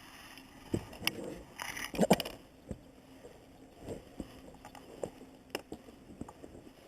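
Scattered clicks, knocks and rustles of a just-caught fish and fishing tackle being handled, with a louder cluster of knocks about two seconds in.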